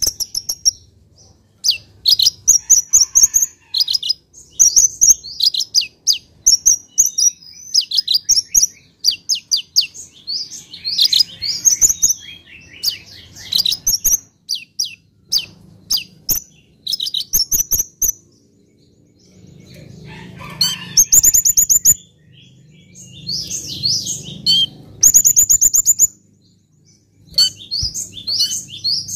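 Male Van Hasselt's sunbird (kolibri ninja) singing its full song: quick runs of high, sharp chirps and twittering trills with short breaks. About two-thirds of the way through come fast, buzzy rattling phrases.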